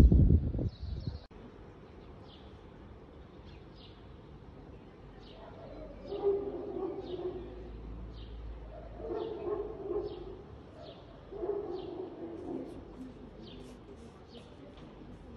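A small bird chirping over and over in short high notes, with a dove cooing in three short phrases a few seconds apart. A brief low rumble at the very start.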